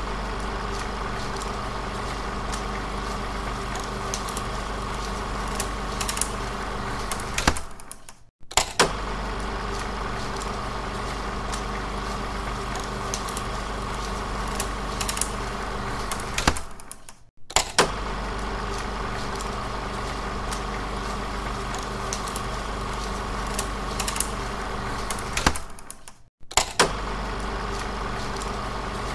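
16mm film projector running: a steady mechanical whirr with a constant hum and scattered clicks. It cuts out almost to silence and starts again three times, about nine seconds apart, with a sharp click at each break.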